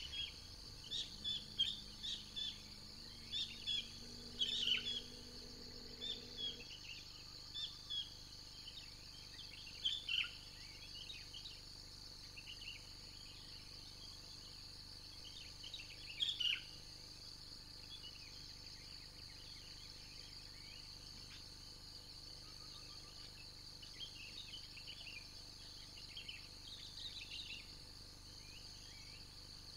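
Small birds chirping and calling in short notes, busiest in the first ten seconds and again near the end, over a steady high-pitched insect drone.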